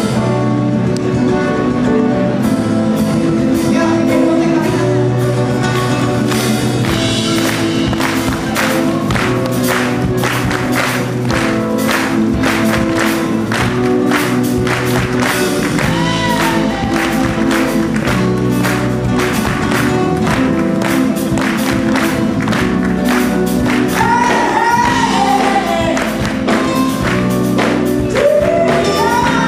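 Live jazz-soul band playing: drum kit keeping a steady beat under guitar, bass and keyboard chords, with a woman singing lead over it.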